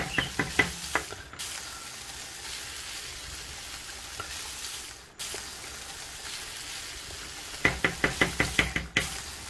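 Wooden spoon stirring a pan of simmering chili and knocking against the pan: a few taps at the start and a quick run of about nine knocks near the end. In between, the chili simmers with a steady low sizzle.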